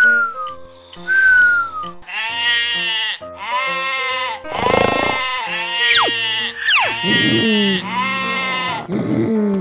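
A cartoon snore whistle falls twice near the start. Then a sheep bleats repeatedly, about six long bleats in a row, with quick falling whistle effects between them, over light children's background music.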